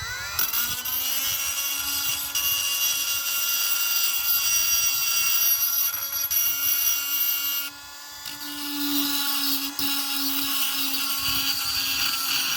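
Power tool motor spinning up with a rising whine, then running at a steady high pitch. It drops off briefly about eight seconds in and comes back up.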